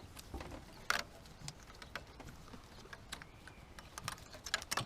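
Scattered light clicks and taps of hands handling the oxygen sensor's wiring and plastic clips, with a quick run of clicks near the end.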